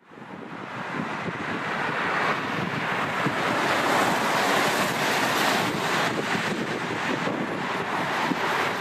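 Steady noise from an Airbus A380's four Engine Alliance GP7200 turbofans, with no distinct tones, fading in over the first second or two.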